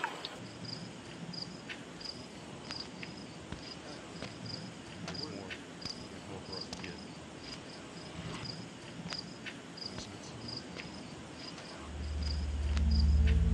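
A cricket chirping steadily, about two high chirps a second, with scattered faint clicks. Near the end a low musical drone swells in and becomes the loudest sound.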